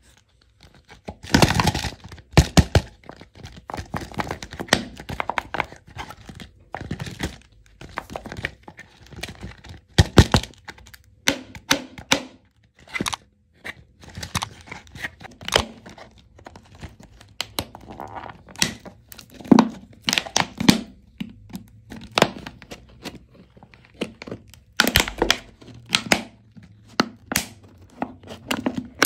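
Hard plastic toy egg shells and a clear plastic capsule handled and pried apart by hand: irregular sharp clicks and knocks, with crinkling of plastic wrap in between.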